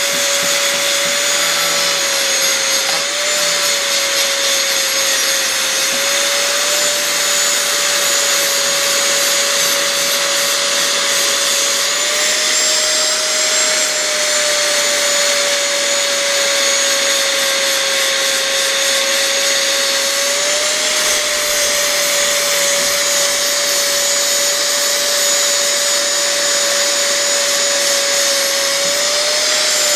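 Angle grinder with a flap disc running steadily, grinding down a built-up brass braze bead until it is flush; its whine dips and recovers slightly in pitch several times as it is pressed against the work.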